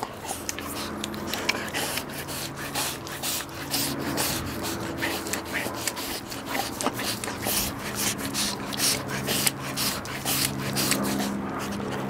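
Siberian husky licking the bristled pad of an OraPup tongue cleaner: a quick, irregular series of licks, a few per second, its tongue rubbing and scraping over the bristles.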